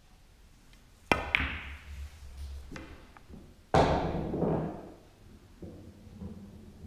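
Pool cue tip striking the cue ball about a second in, followed at once by a click of ball on ball and a low rolling sound of balls on the cloth. A second sharp knock of about the same loudness comes near four seconds in, with a short rumble after it.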